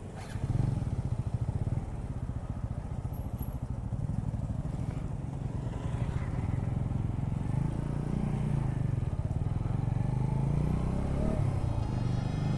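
Motorcycle engine running under way, picking up about half a second in and then holding a steady drone.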